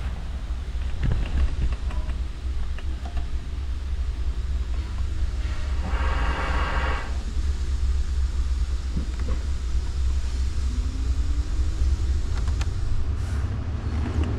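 Ford 5.0L V8 engine of a 2013 F-150 idling steadily, a low rumble heard from inside the cab. About six seconds in, a brief higher-pitched tone sounds for about a second.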